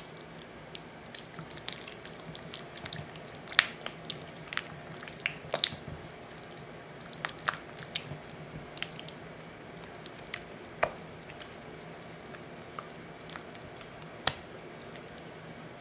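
Silicone spatula stirring thick mascarpone cream in a glass bowl: irregular wet squelches and soft clicks as the cream is folded against the glass, with a few sharper clicks.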